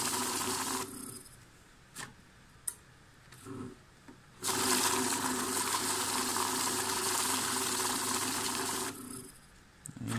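Secure LD-26M banknote counter running, a steady whir of worn notes being fed and flicked through its rollers. It stops about a second in, a couple of clicks follow in the pause, then it runs again for about four and a half seconds and stops.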